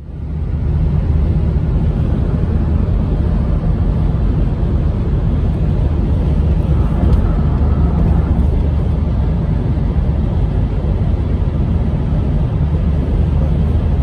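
Steady road noise inside a moving car on a highway: a low, even rumble of tyres and engine, starting abruptly.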